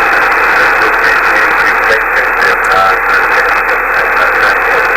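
Steady hiss and static from a shortwave amateur-radio receiver on a single-sideband voice channel between transmissions, the noise confined to the narrow voice band.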